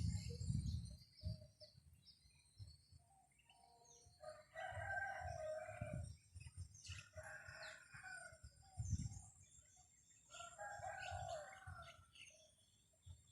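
A rooster crowing three times, with small birds chirping throughout and wind gusting on the microphone.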